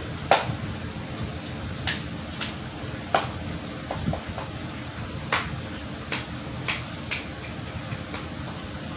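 Steady low hum of an electric cooling fan, with about nine light clicks and taps scattered through it, the sharpest just after the start and about three seconds in.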